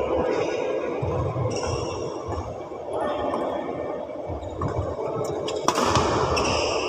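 Badminton rally: rackets striking the shuttlecock with sharp cracks, a few late on and the loudest near the end. Under them runs a steady echoing hall hubbub.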